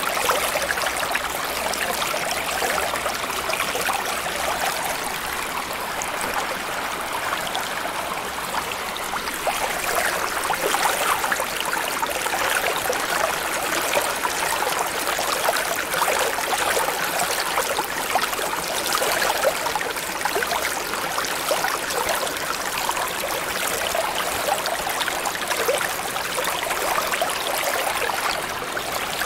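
Continuous water ambience of trickling and bubbling water, steady throughout, with the sound sitting in the middle and high range and no deep hum.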